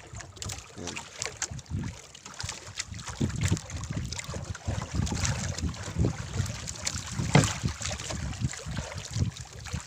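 Irregular water splashes and handling knocks in a small fishing boat, with wind buffeting the microphone.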